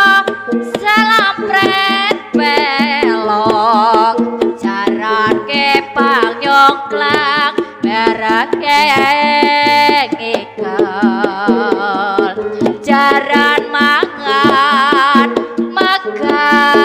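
Javanese gending in Ponorogo style: kendang hand drums play busy patterns under a high melody line with a strong, wavering vibrato.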